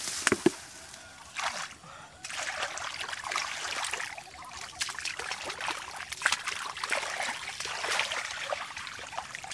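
Hands splashing and sloshing in shallow muddy water, groping through the mud for fish: irregular wet splashes throughout, briefly quieter around two seconds in.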